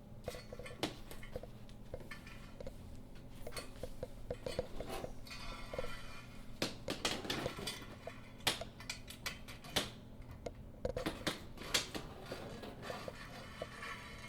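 Irregular light clicks, taps and rattles of the belt and master carrier being worked along a curtain traverse track, with a few louder knocks in the second half.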